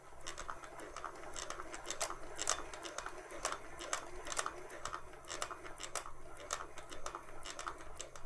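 Singer 401A sewing machine's internal mechanism turned slowly by hand, its cam gear going round and clicking steadily about twice a second over a faint rustle.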